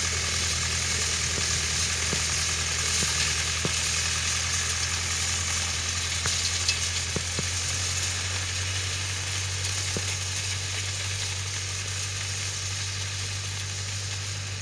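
Farm tractor engine running steadily under light load while it pulls a star-wheel hay rake. It is a low, even hum that slowly fades as the tractor moves off. A steady high hiss lies over it, with a few faint clicks.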